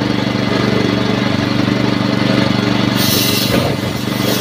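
Small motorcycle engine idling steadily with an even pulse. About three seconds in, a sudden rushing hiss joins it as aerosol fuel sprayed on the car tyre's bead catches fire, the flame used to seat a stubborn bead on its steel rim.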